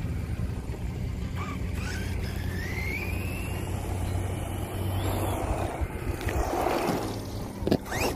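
Brushless electric motor of a Redcat Volcano EPX PRO RC monster truck whining, rising in pitch as the truck accelerates, followed by a rushing noise as it runs over the pavement. A couple of sharp knocks come near the end.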